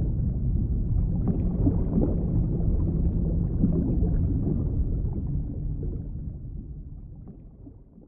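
Low, rumbling ambient drone with a few faint held tones, steady at first and then fading out over the last three seconds.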